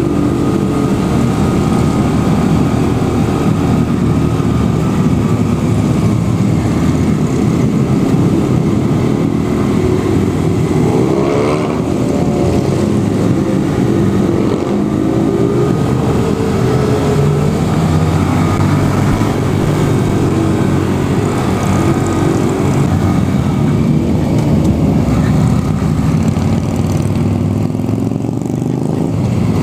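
Motorcycle engines running on the move, the revs rising and falling through the gears, most clearly about twelve seconds in and again near the end.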